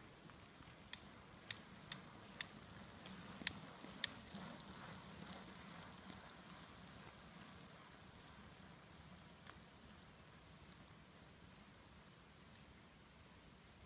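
Faint hiss of rain and the swish of a loaded touring bicycle's tyres on wet asphalt as it rides past, loudest a few seconds in. Several sharp clicks come in the first four seconds, with one more later.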